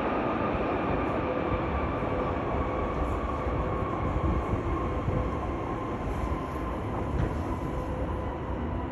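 Boeing 787-9 Dreamliner's jet engines running: a steady heavy rumble with a high whine that slowly falls in pitch.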